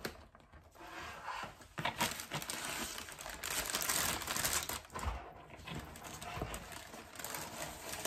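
Packaging being handled and unwrapped: a continuous crinkling rustle with small clicks and tearing, busiest around the middle.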